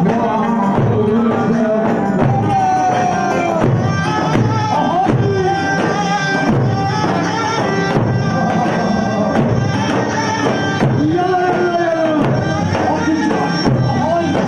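Loud wedding-party music: a gliding melodic lead over a steady, driving percussion beat.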